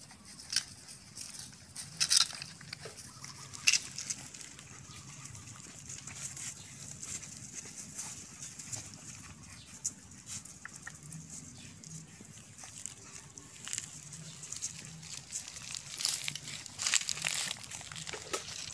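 Puppies suckling at their standing mother: irregular wet smacking and clicking, with a few sharper clicks and a busier patch near the end.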